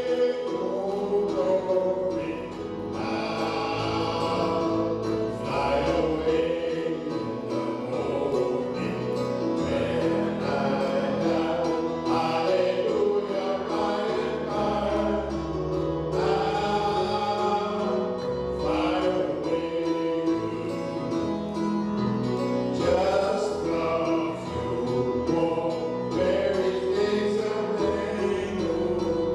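Gospel singing: several voices singing a hymn together, held notes and all, with no break.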